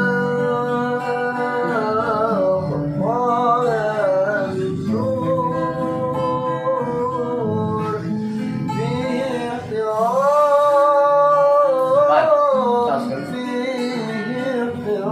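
A voice singing a slow melody with long held, wavering notes over plucked acoustic guitar.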